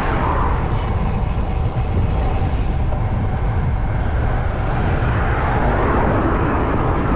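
Wind buffeting the microphone of a moving road bicycle, a steady low rumble mixed with tyre noise on the tarmac. Oncoming cars pass the bike, one near the start and another about six seconds in.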